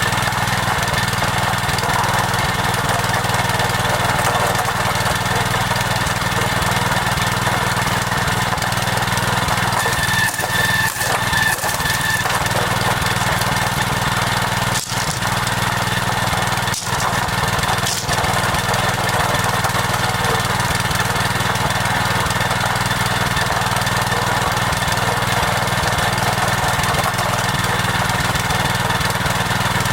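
Small engine running steadily at an even speed, with a few momentary dips.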